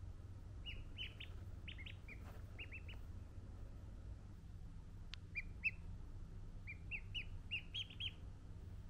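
Ducklings peeping: short, high chirps in quick runs of two to four, with a pause of about two seconds midway, over a steady low hum. A single click about five seconds in.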